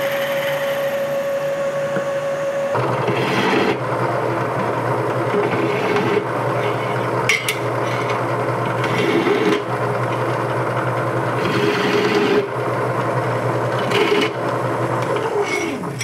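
Milling-machine end mill cutting a steel plate with a steady whine. About three seconds in it gives way to a drill press running, its countersink bit scraping in bursts as it chamfers holes in the steel, and the motor winds down near the end.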